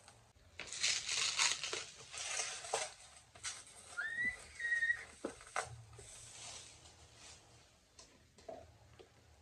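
Bubble-wrap packaging rustling and crinkling in bursts as it is torn off a cardboard box, with a few sharp clicks of handling. About four seconds in, a short thin high squeal rises and then holds briefly.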